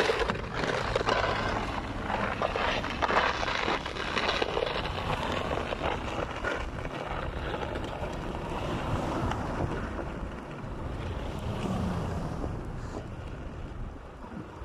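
A plastic snow shovel pushed along a snow-covered cycle lane, its blade scraping through the snow, loudest in the first few seconds and fading as it moves away. Road traffic and wind noise on the microphone run underneath.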